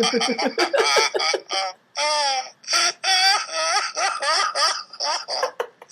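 Two men laughing on purpose as a laughter-yoga exercise: quick bursts of ha-ha laughter, with one drawn-out wavering laugh about two seconds in.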